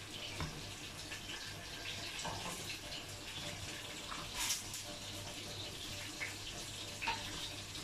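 Metal spoon stirring and scraping chopped chicken sisig and onions in a nonstick pot, with a few light clinks against the pot, over a steady low hiss.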